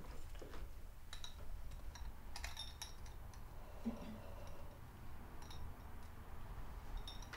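Glass crystal pendants of a chandelier clinking lightly as it is handled: a few scattered, faint ticks and tinkles with a brief ringing tone, over a low room hum.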